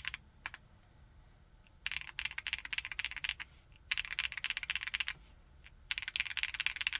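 Typing on a Chilkey ND TKL aluminium mechanical keyboard with Kailh Blue Lotus switches: a few separate keystrokes, then three fast runs of typing with short pauses between them.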